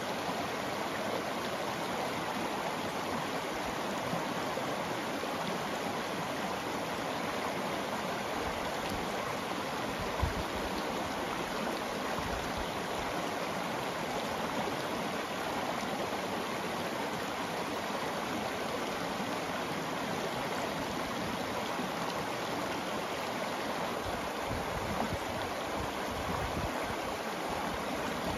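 Shallow river flowing over a cobble bed and around rocks in a small riffle: a steady rush of water, with a brief low bump about a third of the way in.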